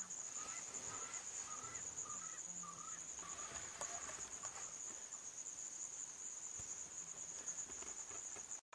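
Steady high-pitched chirring of insects in grassland, with a run of short chirping calls over the first few seconds. The sound cuts off abruptly just before the end.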